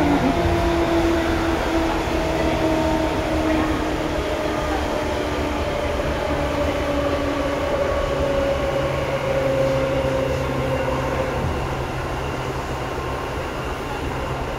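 Seibu 2000 series electric train running, heard from inside the car above the line breaker. The traction motors give a whine that slowly falls in pitch as the train slows, over a steady rumble of wheels and running gear.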